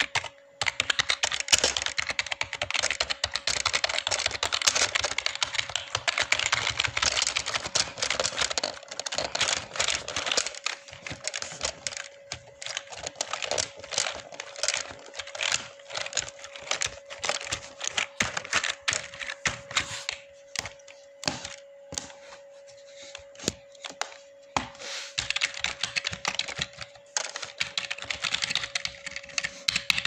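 Typing on a Razer computer keyboard: a fast run of keystrokes, thinning to scattered single key presses from about a third of the way in, then fast again near the end. A faint steady tone runs underneath.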